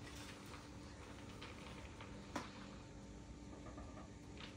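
A few faint taps and clicks of lotto game pieces (cardboard markers and wooden barrels) handled on a table, the clearest about two and a half seconds in, over a low steady hum.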